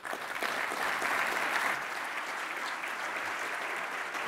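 Large audience applauding: dense clapping that breaks out suddenly and holds steady.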